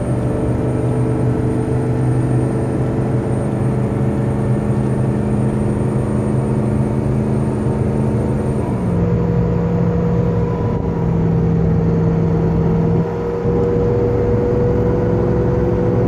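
Ford F-350's engine cooling fan running loud while driving, a steady whir heard inside the cab over the engine and road noise. About nine seconds in, the pitch of the drone shifts.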